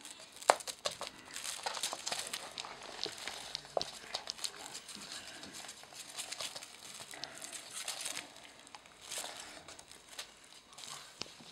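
Siberian kittens' paws and claws scrabbling and skittering on a wooden floor as they pounce at a feather wand toy, in irregular clicks and patters, with rustling from the toy; the sharpest click comes about half a second in.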